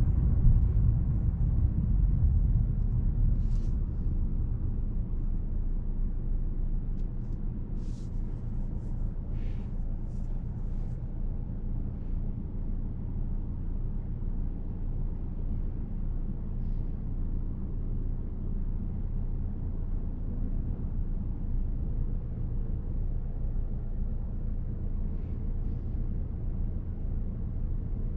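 Mercedes-Benz E350 driving: a steady low rumble of engine and road noise, a little louder for the first several seconds and then easing, with a few faint short clicks.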